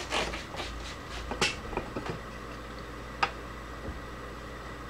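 Hands working a small part loose on a benchtop drill bit sharpener: light rubbing and a few sharp clicks, several in the first second and a half and one about three seconds in.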